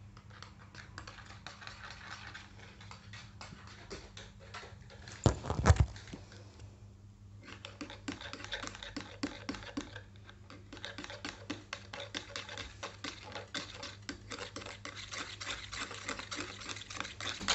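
A brush stirring an oil and melted-butter blend in a plastic mixing bowl: quick repeated clicks and taps of the brush against the bowl, growing busier near the end. A couple of loud knocks come about a third of the way in.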